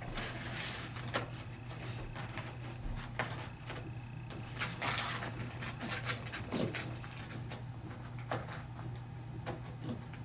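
Rustling and scraping of hot-melt carpet seam tape and carpet being handled, as the tape is slid under the seam edge. The noise comes in irregular bursts with a few sharp clicks.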